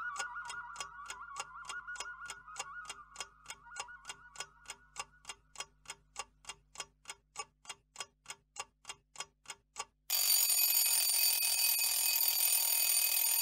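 A clock ticking steadily, about three ticks a second, under the last notes of a wavering melody that fades out. About ten seconds in, an alarm clock bell starts ringing loudly and keeps ringing.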